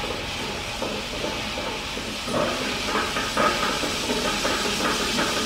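Walk-behind floor grinder running on a concrete floor, a steady hissing whir of its spinning disc head sanding the surface for coating. It grows louder and rougher about two seconds in.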